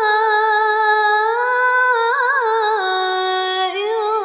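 A woman reciting the Quran in melodic murottal style, drawing out one long vowel with a quick wavering ornament about halfway through and stepping down in pitch near the end.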